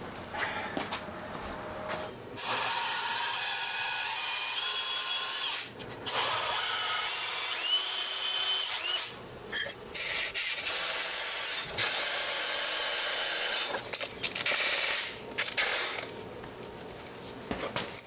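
Cordless drill/driver driving screws through a steel anchor plate into a wooden stand, in three or four runs of a few seconds each with short pauses between them. The motor's pitch rises near the end of some runs.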